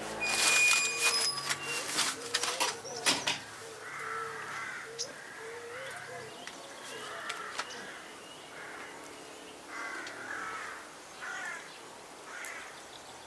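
A crow cawing repeatedly, harsh calls about every one to two seconds. Before it, in the first three seconds, a quick run of sharp clicks and knocks.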